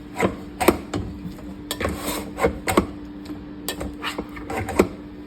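A kitchen utensil knocking and scraping against a bowl while rice is scooped in, in a run of about ten short, irregular knocks.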